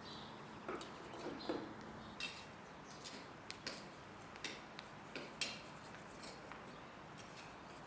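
Irregular light clicks and taps from hand tools working a garden bed, about a dozen scattered strokes at no steady rhythm.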